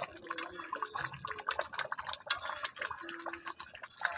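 Thick chicken gravy simmering in a wide metal kadai, bubbling with many irregular small pops, as a spatula stirs through it.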